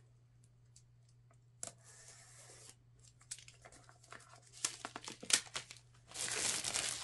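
Plastic shrink-wrap on a product box being slit and torn off. It crackles and crinkles in short bursts, then gives a longer, louder tearing rustle near the end.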